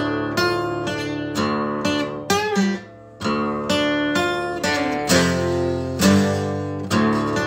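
Acoustic guitar strummed in steady chords, the strings ringing between strokes, with a brief pause about three seconds in before the strumming resumes.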